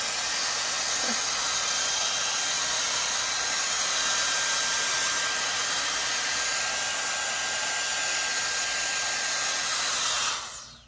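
Skin Research Institute StyleWrap 4-in-1 hot-air dryer brush running with a curling barrel attachment: a steady rush of blown air with a faint high whine in it. Near the end it is switched off and the sound dies away quickly.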